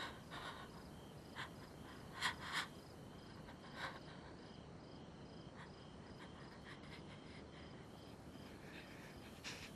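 Faint crickets chirping in a steady pulsing pattern, with a few soft, short sounds in the first four seconds.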